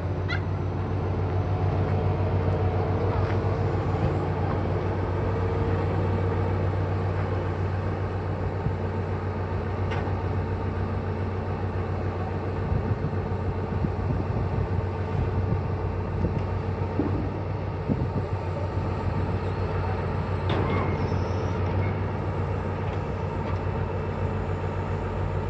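Heavy truck's diesel engine running steadily, powering its hydraulic loader crane, with a few faint knocks now and then.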